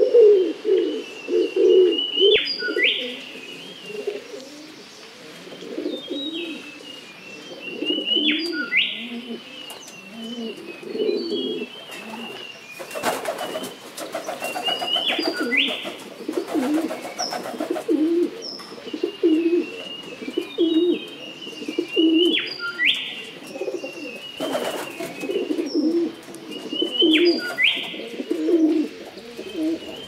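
Common wood pigeon cooing, a run of low, soft notes repeated steadily. Another small bird repeats a short, high song phrase about every six seconds, and there is a stretch of rustling noise around the middle.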